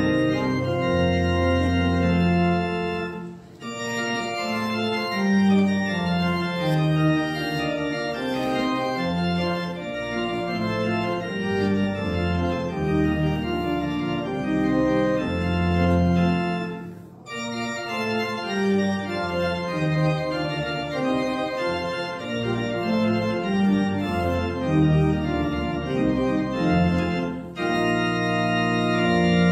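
Church organ playing a prelude in sustained chords, with brief breaks between phrases.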